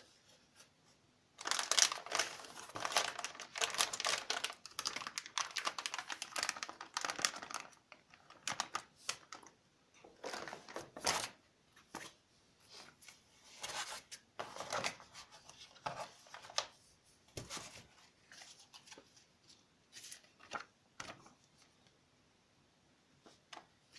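Packaging being crinkled and rustled by hand during an unboxing: a dense stretch of crinkling for about six seconds, starting a second and a half in, then scattered short rustles and clicks.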